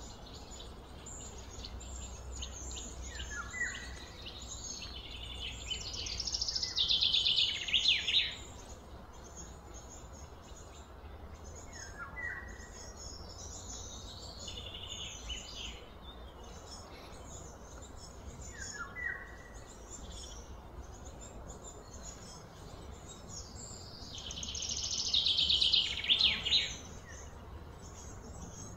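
Outdoor bird and insect calls. Short falling chirps repeat every several seconds, and two louder buzzing, pulsing calls swell for a couple of seconds and then cut off, about six seconds in and again near the end.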